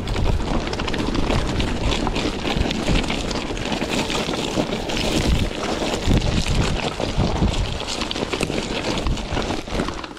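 Wind buffeting the microphone over the crunch and rattle of a Trek Marlin 5 mountain bike riding over rough gravel ground, a steady run of fine clicks and rumble without a break.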